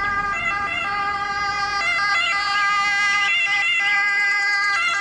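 Emergency siren of a Mercedes-Benz ambulance running on blue lights. It is a steady, fairly loud multi-tone wail with brief pitch shifts every second or two.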